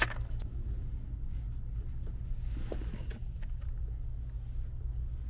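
Faint, scattered clicks and scrapes of a ratchet and metal fittings as the factory fuel line is worked loose at the fuel filter housing, over a steady low hum.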